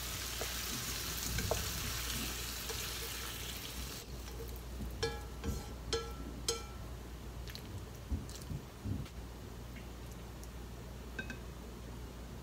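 Food still sizzling faintly in a frying pan just taken off the heat, the hiss dying away after about four seconds. Then come light clicks and scrapes of wooden chopsticks against the pan and a ceramic plate, a few of them with a brief ring.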